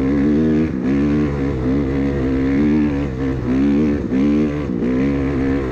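Off-road vehicle engine being driven hard, its pitch rising and falling, with several brief dips in pitch and loudness.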